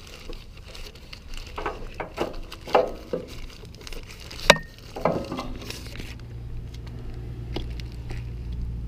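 Plastic zip-top bag crinkling and rustling around a spin-on oil filter as it is unscrewed by hand and pulled off into the bag, with a sharp click about four and a half seconds in. From about six seconds on only a low steady hum remains.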